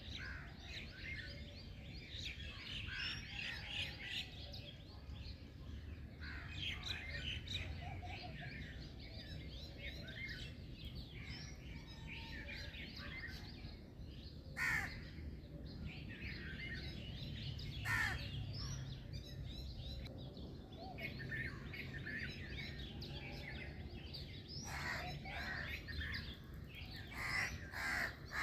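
A chorus of many birds chirping and singing over a steady low background rumble, with two louder sharp calls about halfway through and a run of louder repeated calls near the end.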